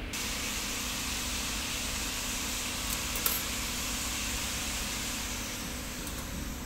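Steady hiss and low hum of a wire cut-strip-tinning machine running, with one sharp click about three seconds in.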